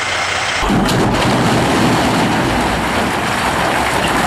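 A loader bucket dumps a load of rock into an empty plastic-lined dump trailer. About half a second in, there is a sudden crash of stone hitting the bed, with a few sharp impacts. It then turns into a steady dense rush of falling rock.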